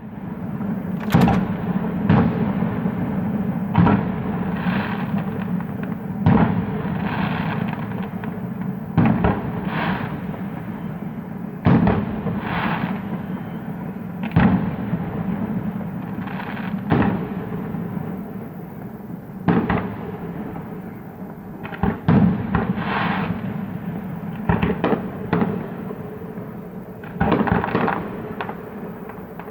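Fireworks going off: a string of sharp bangs every one to three seconds, several of them followed by about a second of crackling, over a steady low rumble. A quick cluster of bangs comes near the end.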